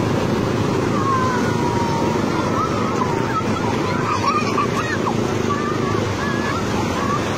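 Surf washing up a beach, a steady rushing noise, with children's high calls and shouts over it.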